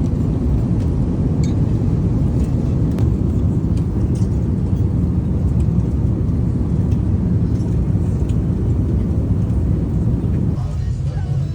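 Steady low drone of an airliner cabin in flight, the jet engines and airflow, with a few faint clicks. The upper part of the drone drops away about ten seconds in.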